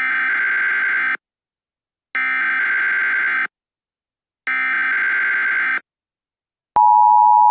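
Emergency Alert System SAME header: three bursts of buzzing digital data tones, each a little over a second long, with short gaps between them. Near the end the steady, louder two-tone EAS attention signal begins.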